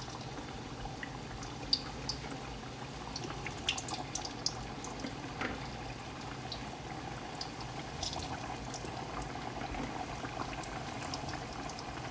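Potato chips deep-frying in hot oil: a steady bubbling sizzle dotted with scattered sharp crackles and pops.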